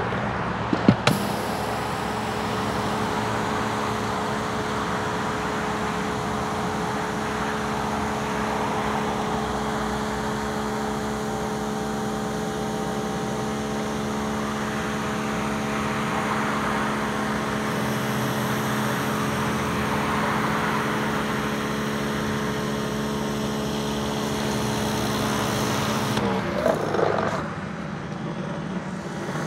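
Greenworks GPW3000 brushless electric pressure washer running with a steady hum while its spray hisses under a 15-inch rotating surface cleaner pushed over concrete. A sharp click comes about a second in, and the sound drops near the end.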